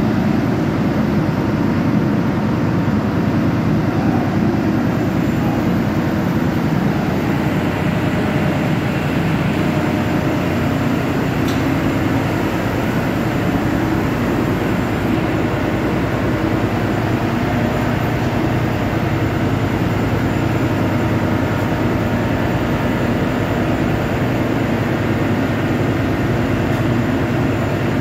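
Steady, loud machinery drone that holds the same level throughout, deepest in its low and low-middle range.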